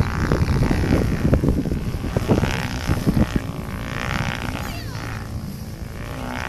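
Wind buffeting the microphone in gusts, with irregular low thumps. Partway through, a wavering pitched hum joins in.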